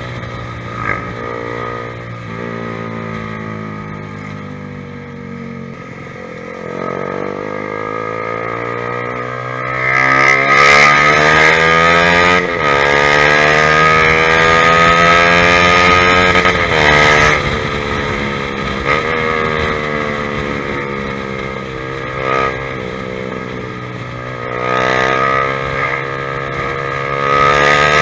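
Honda CBR150R's single-cylinder engine through an aftermarket ProLiner TR1-R exhaust while riding. The revs fall off, then climb hard, dip sharply at a gear change about halfway through, fall away again, and rise once more near the end.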